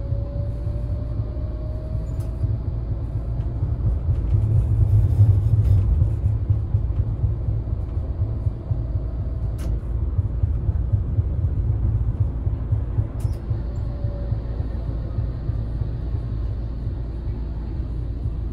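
Tram running along street track, heard from inside the driver's cab: a steady low rumble of wheels on rails that swells about five seconds in, with a faint motor whine that rises in pitch over the first couple of seconds and comes back more faintly later. A few sharp clicks are scattered through it.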